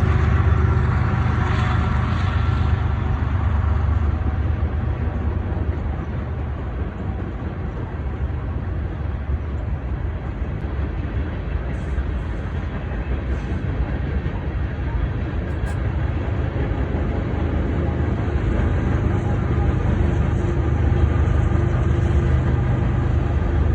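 A train going by with a steady low rumble. An engine hum stands out in the first few seconds, fades, and comes back near the end.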